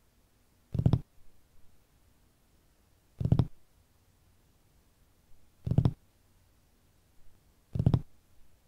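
Sound design from a horror short film's soundtrack: four short, low thuds evenly spaced about two and a half seconds apart, with fainter knocks between them.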